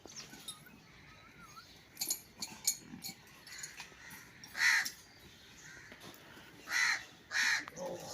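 Bird cawing three times, harsh and rasping: once about halfway through, then twice in quick succession near the end, with faint chirping earlier.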